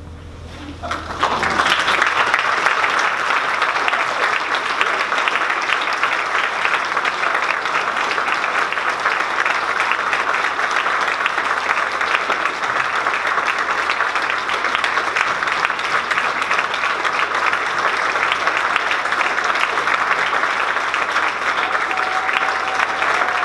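Concert audience applauding steadily. The applause breaks out about a second and a half in, as the orchestra's final low note dies away.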